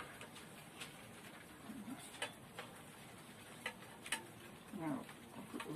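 Metal tongs clicking and tapping against a frying pan as frying chips are turned, a handful of sharp clicks spread a second or so apart over a faint steady hiss.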